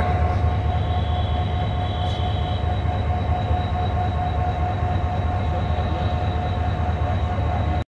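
Diesel locomotive at the head of a passenger train running with a steady low rumble and a steady hum as the train pulls out after its departure whistle. The sound cuts out briefly just before the end.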